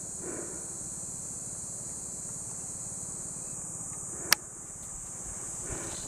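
Insects droning steadily in a high, continuous chorus, with one sharp click a little past four seconds in.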